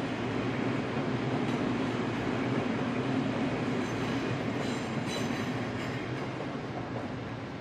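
Odakyu Line electric train passing at a level crossing, a steady rail rumble that is loudest midway and eases off near the end, with faint high wheel tones in the middle.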